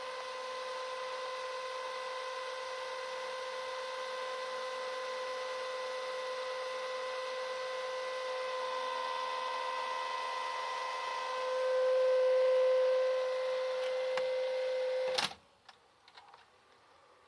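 VCR tape mechanism making a steady buzzing tone that swells louder about twelve seconds in, then stops abruptly with a sharp click about fifteen seconds in, followed by a few faint mechanical clicks. The owner takes the buzz for chatter from dried-out grease, with the mechanism still working normally.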